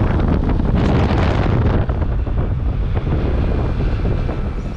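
Wind rushing over the microphone during a scooter ride, with a steady low rumble underneath.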